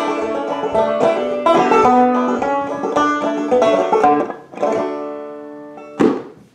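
Banjo being played: a quick run of plucked notes that ends on a chord, which rings out and fades about four and a half seconds in. A short sharp sound comes near the end.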